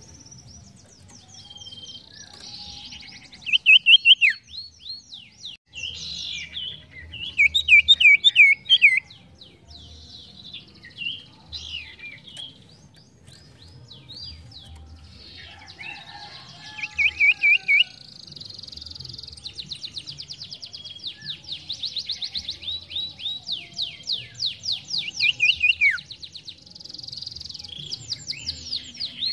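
Iora (sirtu) singing: phrases of fast, high chirps and trills with loud bursts of quick, repeated whistled notes, some ending in a falling note.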